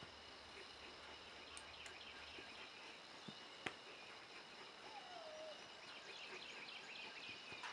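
Near silence: faint outdoor background with faint high chirping toward the end and one sharp click about three and a half seconds in.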